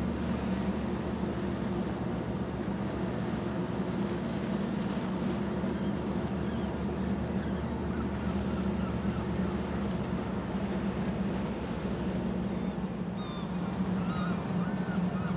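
Low, steady hum of the cruise ship Azamara Pursuit's engines and onboard machinery as the ship passes under way, with a few faint high chirps near the end.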